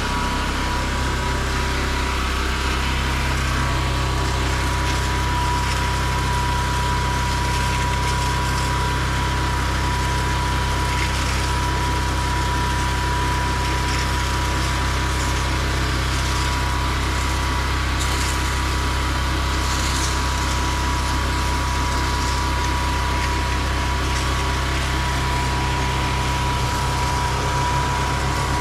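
Engine-driven pressure washing equipment running at a steady speed, with water spraying.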